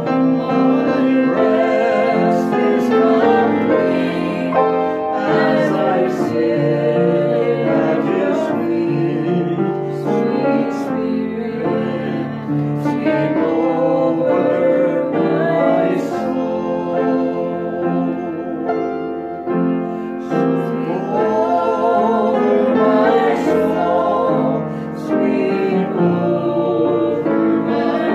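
A man and a woman singing together to piano accompaniment, the piano played by the man as he sings.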